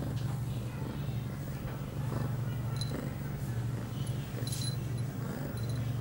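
A female ragdoll cat in heat purring steadily while being stroked, the purr pausing briefly with each breath. The small bell on her collar tinkles faintly a couple of times.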